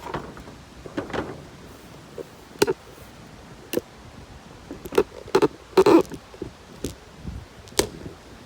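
Cardboard box being opened and its contents handled: an irregular run of short rustles, scrapes and knocks, busiest a little past the middle.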